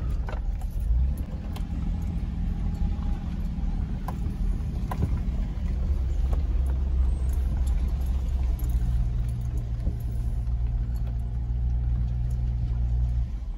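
Steady low rumble of a car's engine and tyres heard from inside the cabin as it rolls over a brick driveway, with a few faint clicks.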